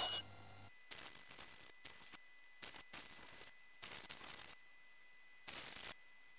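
PerioScan ultrasonic dental scaler switched on and off in about six short bursts, each a hiss with a high, wavering whine, as its tip works over a tooth root.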